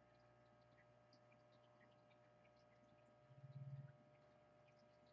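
Near silence: a faint steady electrical hum, with a brief low swell about three and a half seconds in.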